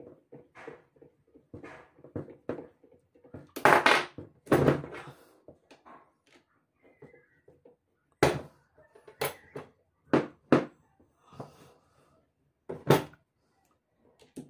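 Homemade AR-style .22 pistol parts of metal and plastic being handled and fitted together: two louder rattling clatters about four seconds in, then five sharp single clicks spread over the following several seconds.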